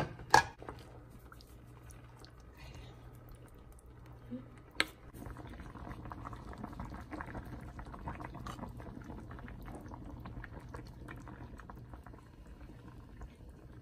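Pot of tteokguk broth boiling, with a sharp clink of kitchenware near the start and another around five seconds in. From about five seconds in the bubbling grows louder as beaten egg is poured into the boiling broth and stirred with a spoon.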